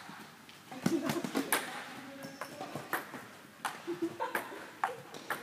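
Table tennis rally: a ping-pong ball clicking sharply off the paddles and the table in an uneven rhythm, about one click every half second, sometimes two in quick succession.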